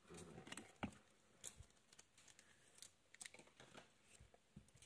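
Near silence with a few faint clicks and taps: trading cards being lifted out of clear plastic display stands.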